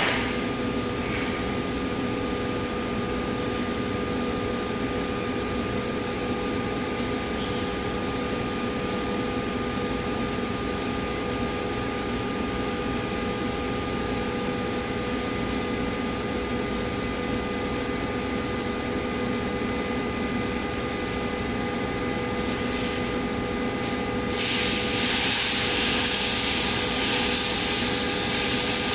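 Omax 60120 CNC waterjet cutter: its high-pressure pump and drives hum steadily, with several steady tones. About 24 seconds in, a loud hiss of the high-pressure water jet firing starts and is still going near the end.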